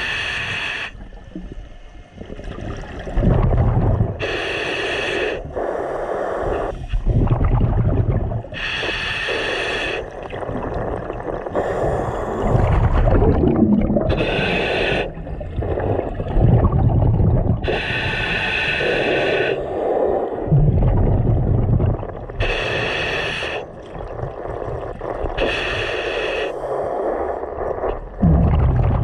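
Scuba diver breathing through a regulator underwater: each inhalation hisses through the demand valve, then a low rumbling burst of exhaled bubbles follows, about one breath every three to four seconds.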